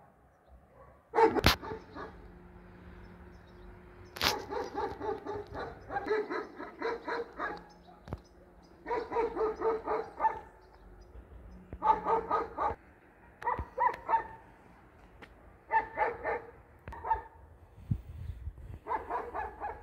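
Dog barking in short bouts of quick barks, with pauses of a second or two between them.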